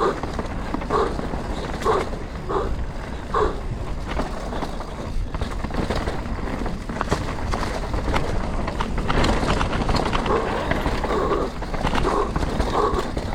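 Mountain bike ridden down a rough trail: tyres crunching over dirt and rock, frame and chain rattling with many sharp clicks, over a steady rumble of wind on the helmet camera. Short pitched huffs come every second or so near the start and again in the last few seconds.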